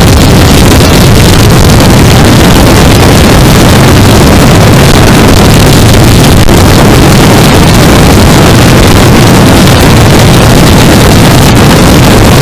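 Loud, steady wind rush on the microphone mixed with the running drone of a Yamaha R3's parallel-twin engine, riding at freeway speed.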